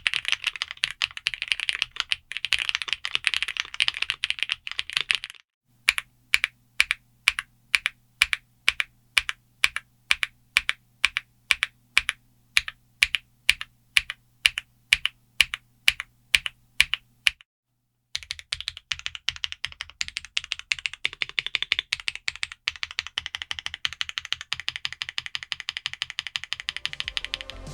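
Typing on a GravaStar Mercury K1 aluminium gasket-mount keyboard with Leobog Graywood V4 linear switches and thick double-shot PBT keycaps. It starts with fast typing. After a brief break, single key strokes come evenly at about two a second, and after another break fast typing returns.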